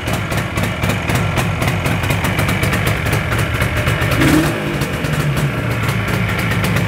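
1976 Yamaha RD400's air-cooled 400cc two-stroke parallel twin running steadily after a cold start, with a fast, even exhaust pulse. The note swells briefly about four seconds in.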